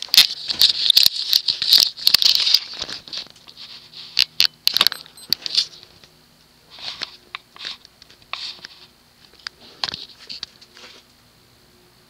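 Kenroy 36-inch spinner ceiling fan starting up on low speed, with a faint steady motor hum and, from about halfway in, a faint thin high tone. Irregular rattling and rustling clicks sit over it, dense for the first few seconds and then in scattered bursts.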